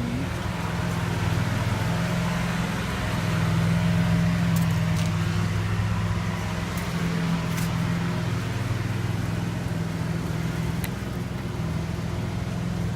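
Car engine running steadily at idle: a low, even hum with a few faint clicks over it.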